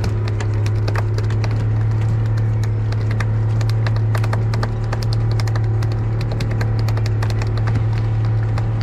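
Steady low hum of a small fishing boat's engine running, with rapid, irregular tapping and knocking on top of it.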